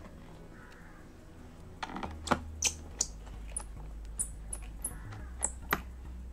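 A run of about ten small sharp clicks and taps from a hand and screwdriver handling a laptop's bottom cover, after the last hinge screws are in, over a steady low hum.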